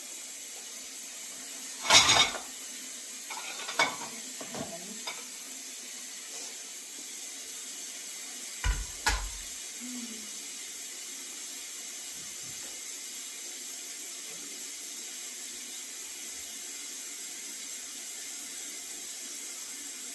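Kitchen clean-up sounds: a loud clatter of dishes about two seconds in, then a few lighter knocks, and two dull thumps near the middle, all over a steady hiss.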